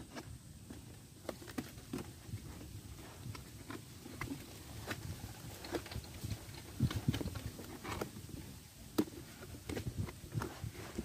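Irregular taps, knocks and scrapes of a folded cardboard sheet being handled and pressed into place as a liner inside a derby box, with a few firmer knocks about seven seconds in.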